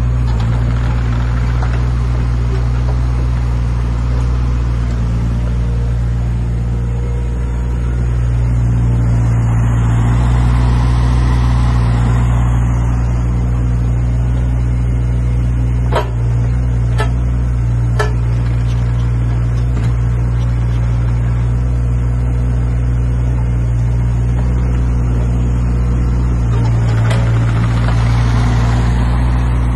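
JCB 8014CTS mini excavator's diesel engine running steadily while the machine slews and works its arm. The engine and hydraulics grow louder twice under load. Midway there are three sharp knocks about a second apart.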